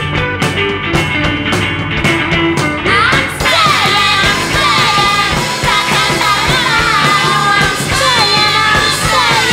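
A rock band playing live on electric guitars, bass and drums. The drums and cymbals come in fuller, and women's voices start singing about three and a half seconds in.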